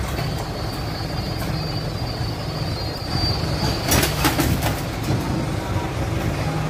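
A machine running steadily, a low drone with a thin high whine over it. About four seconds in comes a short run of metal clinks as a wrench is worked on a common-rail diesel injector.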